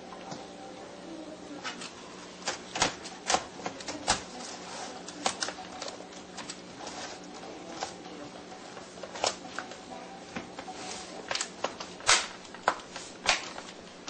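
Irregular clicks and taps of small plastic and metal laptop parts being handled at the hard drive bay of an open laptop chassis, over a faint steady hum. The sharpest click comes near the end.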